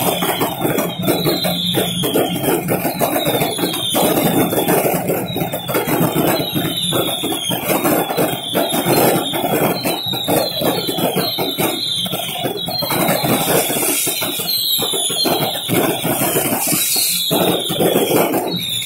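Street fireworks going off: high whistles, each falling in pitch and coming one after another, over dense crackling and popping bangs.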